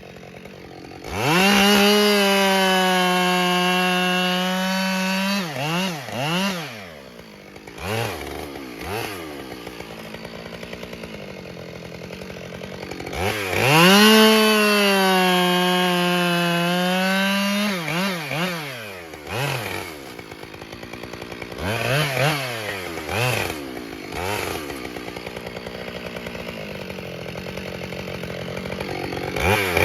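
Husqvarna 572 XP two-stroke chainsaw cutting ash logs. Twice it is held at full throttle for about four seconds, its pitch sagging slightly as the chain bites, then drops back to idle. Between the cuts it gets short throttle blips, and it revs up again at the very end.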